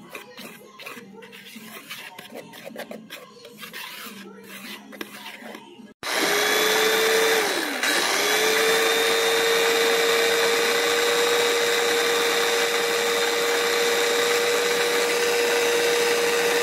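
Dry flour being stirred in a bowl, a soft scratchy rubbing, for about the first six seconds. Then a small food processor's motor starts suddenly and runs loudly with a steady high whine; its pitch dips sharply once about two seconds after starting, then recovers and holds steady.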